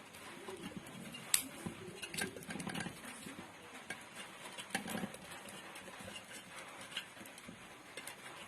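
Scattered light clicks and rustling of enamelled copper winding wire being handled and pressed into the stator slots of a grinder motor during rewinding.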